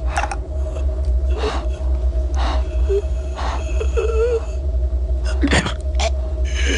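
A person breathing heavily in gasps about once a second, with a few short strained vocal sounds near the middle, over a steady low hum.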